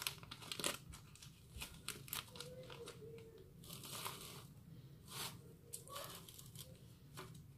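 Plastic sheet crinkling and rustling in faint, irregular crackles as it is pulled to ease a frozen cake out of a cardboard Pringles tube.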